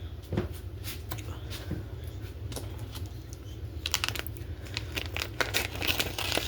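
Groceries and plastic packaging being handled on a kitchen counter: a few light clicks and knocks, then from about four seconds in a dense run of crinkling and rustling.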